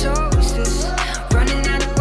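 Background R&B music with a steady beat.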